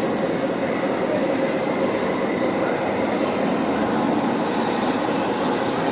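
A 1/14-scale radio-controlled truck running: a steady, even mechanical rumble with no breaks.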